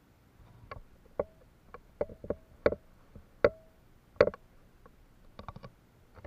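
Hard plastic toy animal figures knocking together: about a dozen irregular sharp clacks, some with a short hollow ring, and a quick clatter of three or four near the end.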